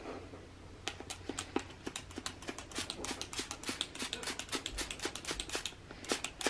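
Quick, short scrubbing strokes by hand on a fabric mattress top, working a cleaning mix into a urine stain. The strokes start about a second in and come faster and closer together towards the end.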